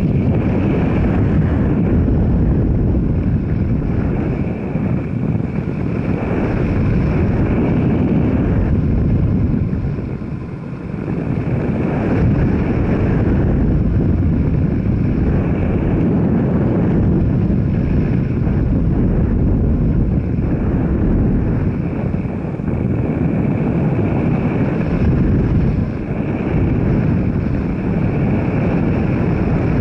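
Steady running noise of a moving vehicle with wind rushing over the microphone, easing briefly about ten seconds in.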